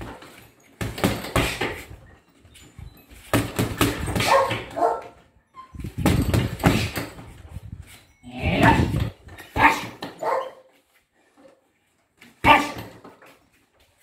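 A dog barking in repeated bursts with short pauses between them, over the thuds of punches landing on a heavy punch bag.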